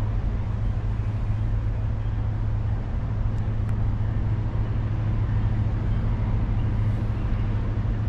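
Norfolk Southern diesel freight locomotive approaching along the track, its engine a steady low drone under a hiss of rolling noise.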